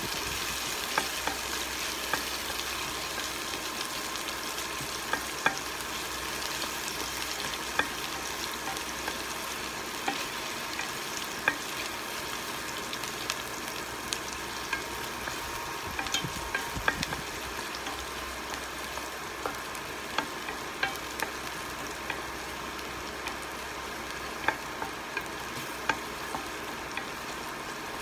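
Sliced onions frying in oil in a stainless steel pot: a steady sizzle with scattered sharp ticks, as a wooden spoon stirs them.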